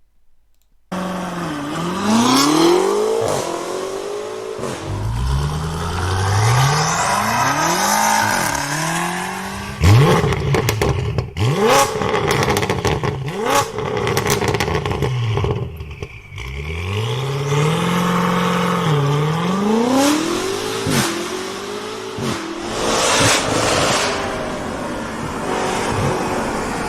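2023 BMW M8's twin-turbo V8 revving, its pitch climbing and dropping again and again. A cluster of sharp cracks comes about ten seconds in.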